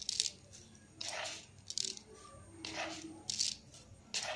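Granulated sugar scooped with a small measuring spoon and tipped onto wet batter in a steel bowl: a short gritty rustle, repeated several times, a little more than once a second.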